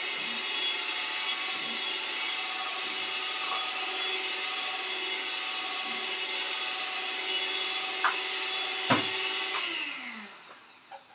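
Handheld electric mixer running steadily in a stainless steel bowl of cake batter, with two sharp clacks near the end, the beaters striking the bowl. About ten seconds in it is switched off and its whine slides down as the motor winds down.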